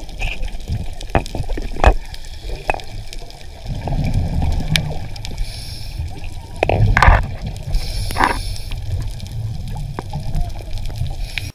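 Underwater recording from a scuba diver's camera: low rumbling water noise with gurgling bubbles, swelling twice, and scattered sharp clicks and knocks.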